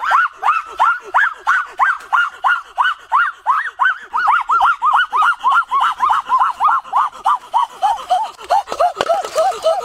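A person's rapid, high-pitched yelping cries, about three or four a second in a steady rhythm, slowly dropping in pitch towards the end, in a scene where crab claws are gripping hands and a head.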